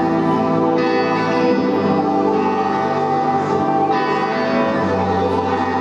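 Music with sustained, layered chords, changing to a new chord about a second in and again about four seconds in.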